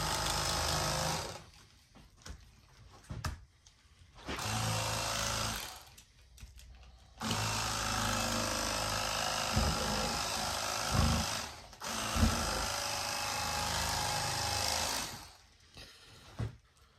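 Battery-powered electric fillet knife running as it cuts through a crappie, its reciprocating blades buzzing steadily. The motor starts and stops four times, with short quiet gaps between runs, and a few low knocks as the blade meets the board or bone.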